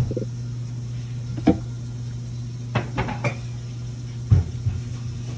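Serving utensils clinking and knocking against a plate, about seven short knocks with the loudest about four seconds in, as sliced chicken breast is laid over pasta. A steady low hum runs underneath.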